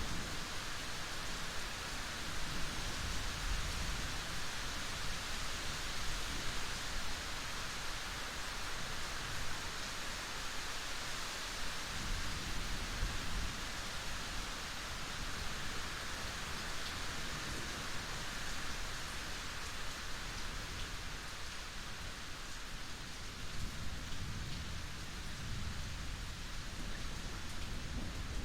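Steady rain falling: an even hiss of many drops, with a few low swells underneath now and then.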